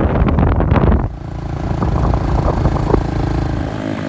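Motorcycle engine running steadily while riding, with a gusty rush of noise in the first second.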